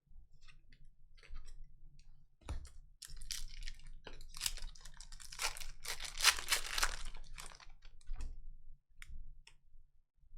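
Hockey trading cards and their foil pack wrappers being handled: a run of rustling, crinkling and sliding clicks, busiest in the middle, over a faint low hum.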